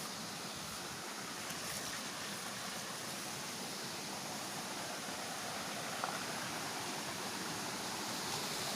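Steady rush of flowing river water, growing gradually louder as a small, fast-flowing waterfall comes nearer.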